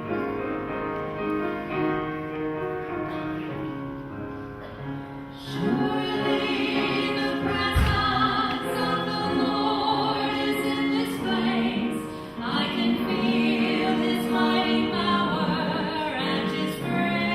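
Church worship music: instruments play a quiet introduction, then a choir comes in singing about five seconds in and carries on. A single low thump sounds about eight seconds in.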